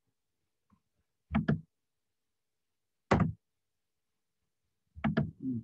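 Loud, sharp knocks of keys being struck on a computer keyboard, including the Enter key that enters a spreadsheet formula. They come as three hits: a quick double, then a single, then another double near the end.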